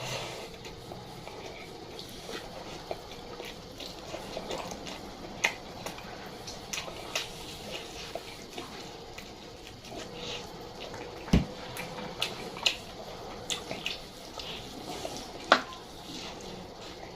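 Wet chewing and mouth clicks of someone eating a juicy meal, with scattered sharp clicks throughout and a single low thump about eleven seconds in, over a faint steady hum.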